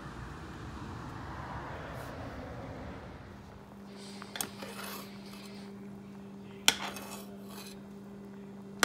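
Outdoor noise for the first three seconds, then a metal spoon clinking and scraping against a cooking pot as thick curry is stirred. There are three sharp clinks, the loudest about two-thirds in, over a steady low hum.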